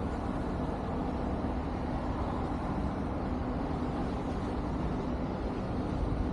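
Steady low rumble of street traffic with a constant hum.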